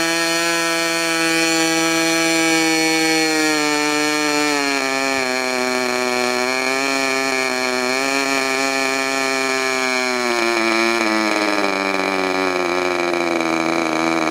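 Freshly overhauled, Clarence Lee-modified K&B .61 two-stroke glow-fuel model airplane engine running fast with a propeller, a loud, high buzz. Its speed drops about four seconds in and again about eleven seconds in, wavers unevenly between those drops, and begins to sag further near the end.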